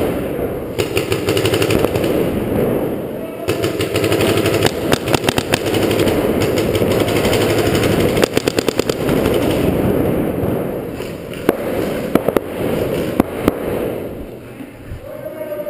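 Paintball markers firing rapid strings of shots, several volleys of quick pops in a row.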